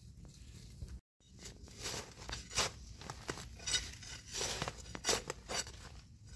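A metal digging blade scraping and crunching into dry, crusty soil in a series of irregular strokes, to dig out termite mushrooms.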